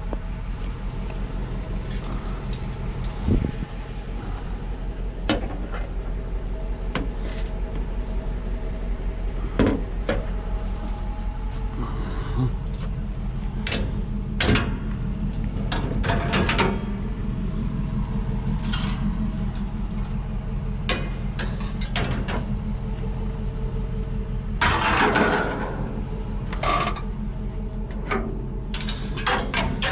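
Scattered clicks, knocks and clatter of scrap items being handled and sorted, over a steady low hum. A longer scraping or rustling burst comes about 25 seconds in.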